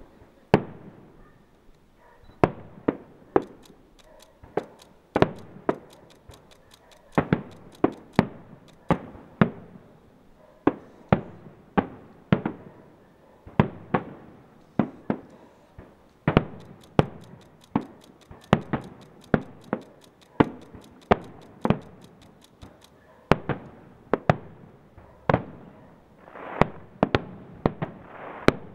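Aerial firework shells bursting in an irregular run of sharp bangs, often two or three within a second.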